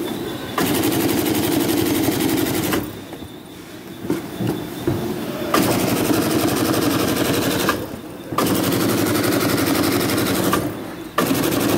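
Miruna G800 semi-automatic carton stitching machine running, driving wire stitches into corrugated box seams in a rapid rattling stream of about a dozen stitches a second. It stitches in four runs of about two seconds each, with short pauses between.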